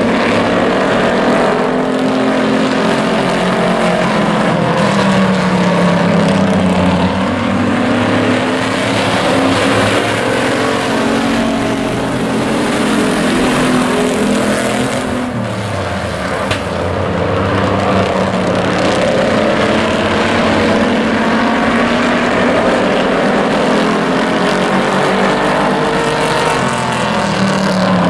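A pack of hobby-class pickup race trucks running on an oval track: several engines at once, rising and falling in pitch as the trucks work through the turns and down the straights.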